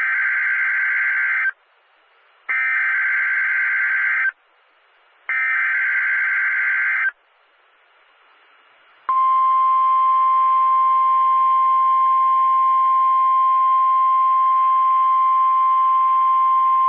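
Emergency Alert System SAME header: three bursts of digital data tones, each just under two seconds long and about a second apart. About nine seconds in, after a short pause, the NOAA Weather Radio 1050 Hz alert tone starts: a single steady high tone that marks an incoming severe weather warning.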